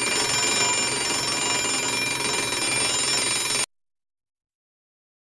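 Alarm clock ringing continuously, a dense, shrill bell ring that cuts off suddenly about three and a half seconds in.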